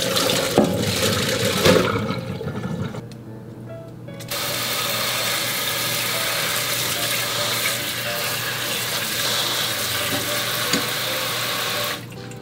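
Jalapeño halves and water poured into a perforated stainless steel colander, splashing and knocking against the metal. After a short lull a tap runs steadily over the peppers in the colander and stops abruptly near the end.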